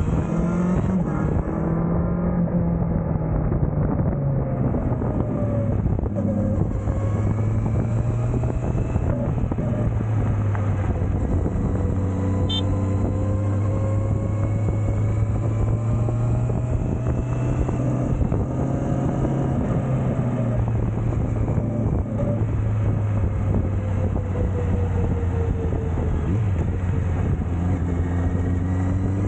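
Honda CBR650R's inline-four engine running steadily, its pitch drifting slowly up and down.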